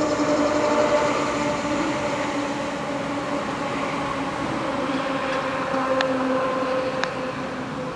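NJ Transit diesel commuter train led by an Alstom PL42AC locomotive running on the line: a steady drone with a few pitched lines that slowly falls in pitch and fades toward the end. Two short clicks come about six and seven seconds in.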